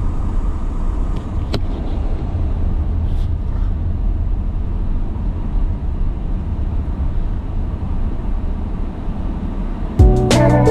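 Car driving, a steady low rumble of engine and road noise. Strummed guitar music starts suddenly near the end.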